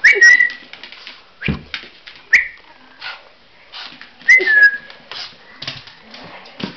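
Small long-haired dog giving three short, high whines in excited play: one at the start, one a little past two seconds, and one at about four seconds that slides down in pitch. Scattered clicks and a low thump come between them.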